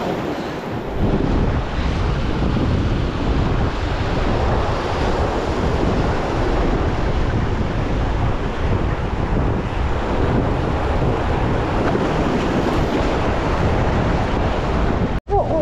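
Ocean surf washing over jetty boulders, with wind buffeting the microphone in a heavy low rumble that comes in about a second in.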